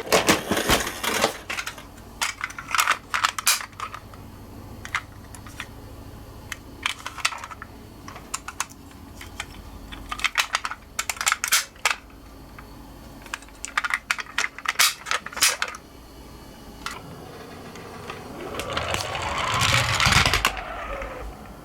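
Die-cast toy cars clicking and clattering as they are handled and set down on a plastic slope, in scattered clicks. Near the end one car rolls down the slope, its wheels making a rattle that builds up and then stops suddenly.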